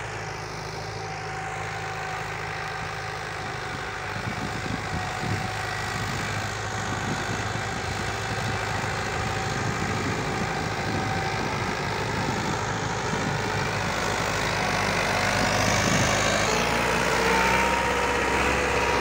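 Mahindra 575 XP Plus tractor's four-cylinder diesel engine running steadily under load as it pulls a cultivator through the soil. It grows gradually louder through the second half as the tractor comes nearer.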